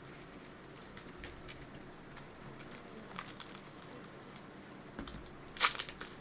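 Pokémon trading cards being handled: faint crinkling and small clicks, with a louder crinkling flurry about five and a half seconds in.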